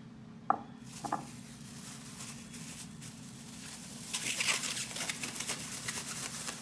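Two light knocks, then the wet, crackly rustle of hands mixing fish pieces with their marinade in a bowl, busier and louder about four seconds in.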